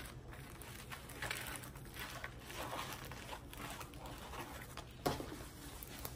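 Stiff paper and a rolled diamond painting canvas rustling and crinkling as they are handled and rolled on a table, with a louder knock about five seconds in.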